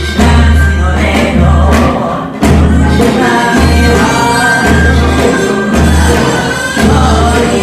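Stage music with voices singing over a steady low bass beat of about one pulse a second.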